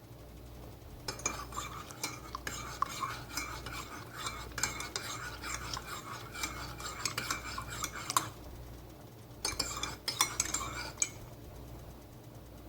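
Teaspoon stirring honey into a cup of tea, clinking rapidly against the sides of the cup: a long spell of about seven seconds, a short pause, then a second, shorter spell.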